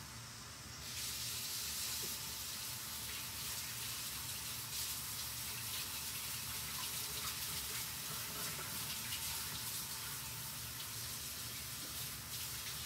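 Kitchen faucet running into the sink for hand-washing: it comes on about a second in as a steady rush of water.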